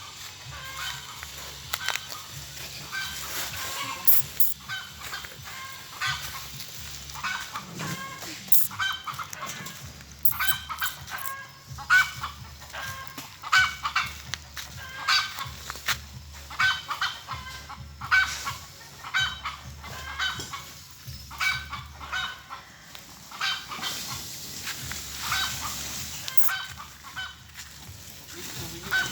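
Domestic fowl calling: many short calls repeated irregularly over and over.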